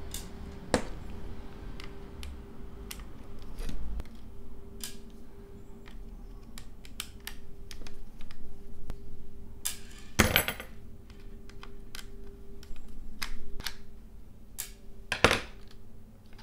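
Small plastic and metal clicks and taps as a precision screwdriver is taken from its plastic case and used to undo the screws holding the driver in an AKG K702 ear cup. Two louder clacks come about ten and fifteen seconds in, over a faint steady hum.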